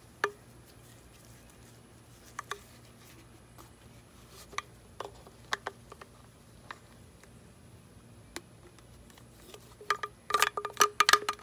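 Light plastic clicks and taps, then near the end a quick run of sharp rattling knocks: the fuel filter and new fuel line knocking about inside a string trimmer's plastic fuel tank as it is shaken to settle the filter at the bottom.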